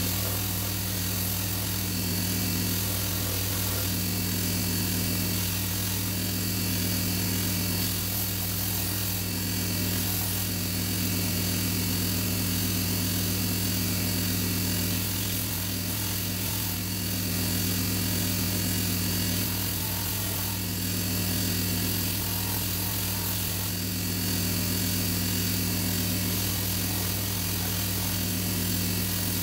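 Bench belt grinder running steadily with a deep motor hum. Every few seconds the knife's stabilized red cedar handle is pressed to the belt and sanded, adding a rougher grinding sound that fades when the piece is lifted off.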